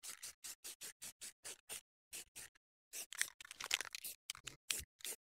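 A Rust-Oleum spray paint can being shaken, its mixing ball rattling in quick even strokes, about five a second, louder and denser in the second half.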